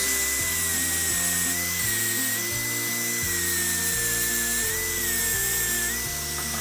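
Small high-speed rotary tool, such as a die grinder, running with a steady high-pitched whine whose pitch sags slightly now and then, as when pressed against the work. Background music plays under it.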